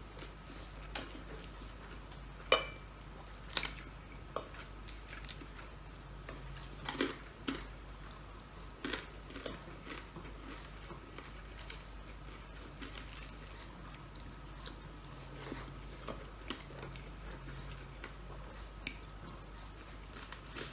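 Close-up chewing and mouth sounds of a man eating rice with fried dried fish by hand, with scattered sharp clicks and smacks. The loudest come around three seconds in.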